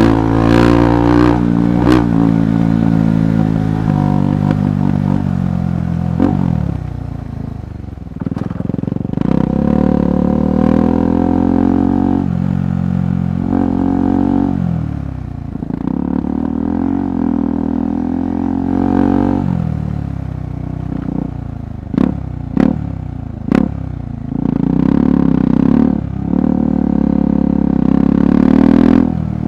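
KTM 390 Adventure Rally's single-cylinder engine under way off-road, its pitch rising and falling with throttle and gear changes. A few sharp knocks and clatter come about three quarters of the way through.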